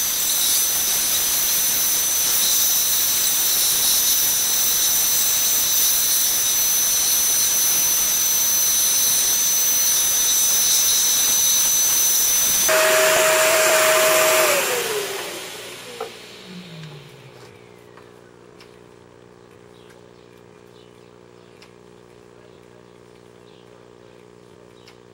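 Vacuum cleaner running with its hose held to the head, a loud steady rush of suction with a high whine. About halfway through it is switched off, and its pitch falls as the motor spins down over a few seconds. A faint steady hum is left after that.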